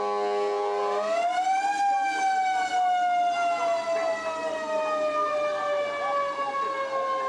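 Fire truck's mechanical siren winding up quickly to a high wail, then slowly winding down in one long falling tone. A held horn chord cuts off about a second in, as the siren starts.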